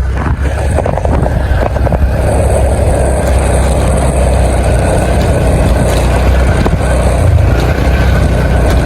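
Benelli motorcycle running steadily while being ridden over a rough track, with a heavy, even rumble of wind on the microphone.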